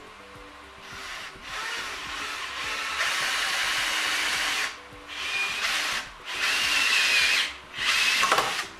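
Cordless drill running in about five trigger-pulled bursts as the bit works into a wooden door frame. The motor whines higher in the later bursts and winds down as the last one ends.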